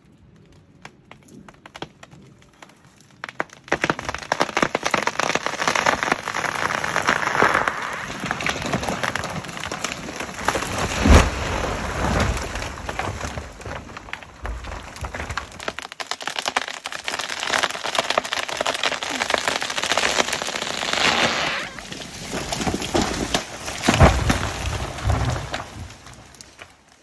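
A large felled conifer going over and crashing down a steep forested slope: a long run of crackling and snapping as branches and neighbouring brush break, with heavy thuds as the trunk hits the ground about 11 s in and again about 24 s in. A few faint cracks from the hinge wood come first, before the crash begins.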